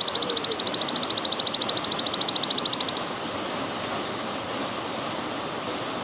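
A belalang emas (golden grasshopper) calling in a loud, rapidly pulsing high trill that stops abruptly about halfway through, leaving the steady trickle of running water.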